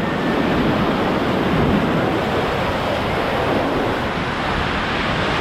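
Whitewater rapids rushing loudly and steadily around a raft, with churning water close to the microphone.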